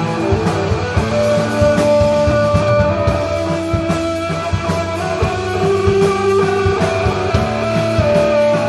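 Live desert rock band playing an instrumental passage: electric guitar holding long sustained notes over low steady notes and a regular drum beat.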